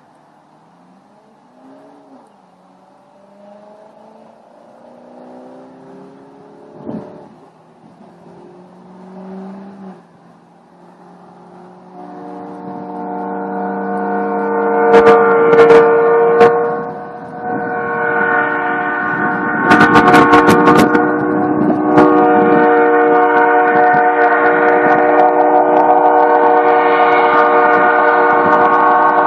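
Nathan AirChime P3 three-chime train horn, air-fed at about 100 PSI, blowing one long, loud, steady chord that comes in about twelve seconds in and swells over a few seconds. Wind buffets the microphone several times while it sounds.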